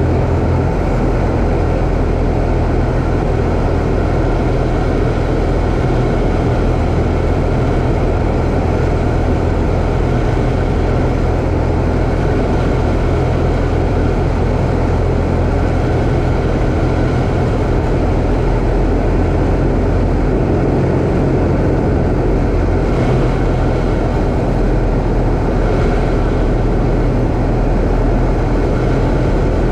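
Old Cessna's single piston engine and propeller droning steadily in level cruise, with a constant rush of wind noise over the cowl-mounted camera.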